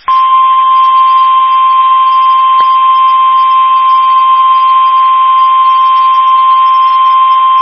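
Emergency alert warning tone from a NOAA Weather Radio broadcast: one loud, steady, unbroken tone at a single pitch, the 1050 Hz warning alarm. It starts right at the beginning and signals that a severe thunderstorm warning message is about to be read.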